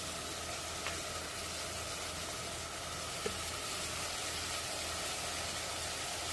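Chopped onions and sliced garlic sizzling steadily in hot groundnut oil in a clay pot, with a light tick about three seconds in.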